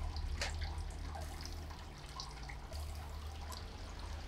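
A few light taps and clicks as a metal combination square and a pencil are handled against an acrylic sheet on a wooden bench, over a low steady hum.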